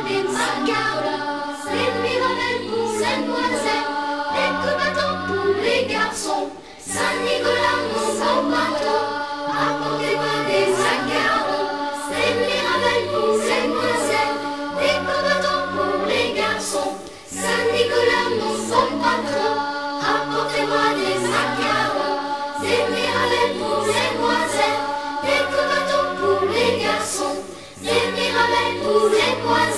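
Choir singing a Christmas song over instrumental accompaniment, with a short pause between phrases about every ten seconds.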